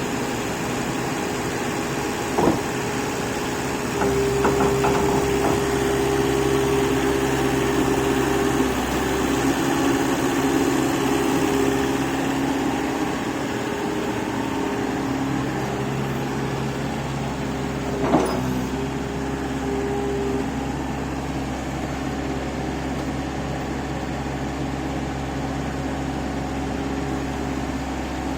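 Excavator's diesel engine running steadily, working harder from about four seconds in and easing back later on. Two short knocks or clanks stand out, one early and one about two-thirds of the way through.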